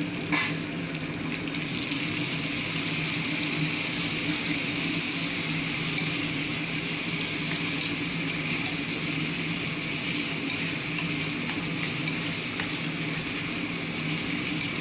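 Masala frying in oil in a pan: a steady sizzle with a low hum underneath.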